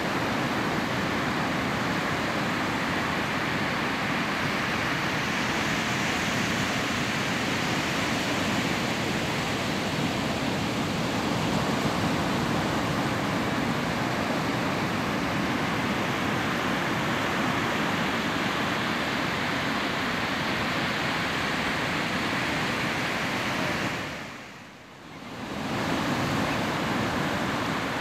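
Ocean surf, a steady rush of noise without any distinct wave crashes; near the end it fades away for about a second and then returns.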